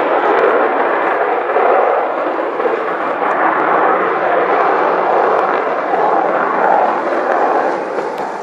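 Avro Vulcan XH558's four Olympus turbojet engines, a loud steady roar as the delta-wing bomber flies overhead, easing off slightly near the end.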